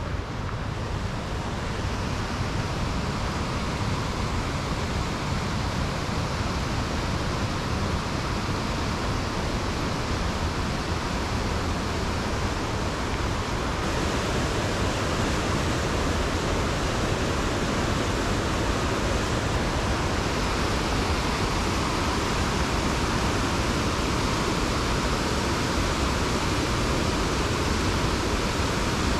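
Steady, loud rush of fast-flowing water from a river cascade or waterfall.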